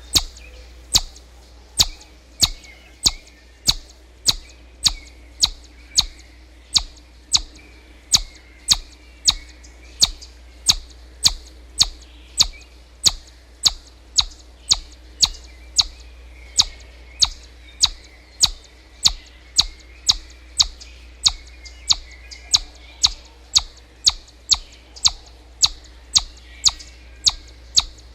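A bird repeating a short, sharp chirp about twice a second in a steady, even rhythm, over faint twittering from other birds and a low steady hum.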